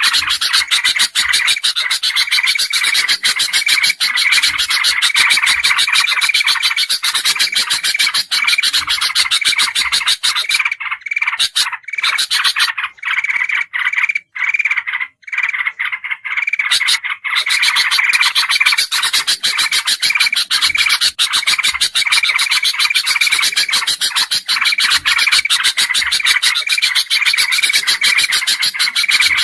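Bird-lure recording of bulbuls (kutilang emas, kutilang jambul and trucukan) calling noisily: a dense, fast rattling chatter with a repeated higher note over it. About ten seconds in it thins to scattered clicks for several seconds, then the chatter resumes.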